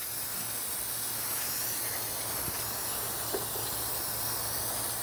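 Shop compressed air hissing steadily from a blow gun, blowing cleaned carburetor parts dry.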